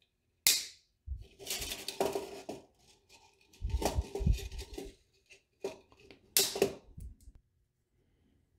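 Stainless steel lock wire handled and pulled off its plastic spool and snipped with cutting pliers: a string of short scraping and rattling sounds and sharp clicks.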